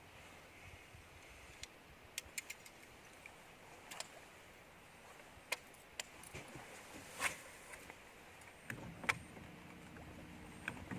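Faint, scattered sharp clicks and light knocks on a small fishing boat, with a heavier low knock a little before the end.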